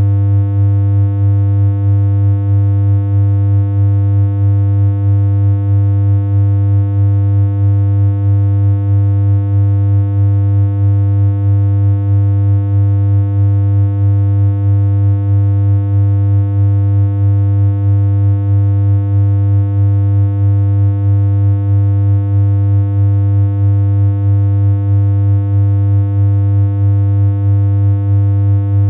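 A steady synthesized hum on one unchanging low note, buzzy with a stack of overtones, its loudness dipping slightly at a regular pace.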